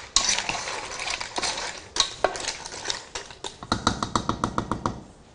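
Wooden spatula stirring and tossing pasta in an enamel saucepan, scraping and knocking against the pot. About four seconds in comes a quick run of about ten knocks.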